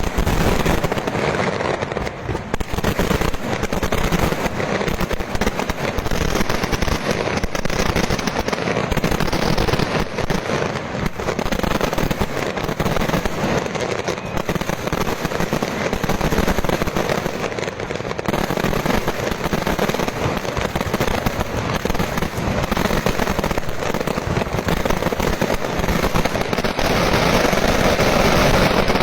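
Fireworks display in a dense, continuous barrage of bangs and crackles with no pauses, swelling a little near the end.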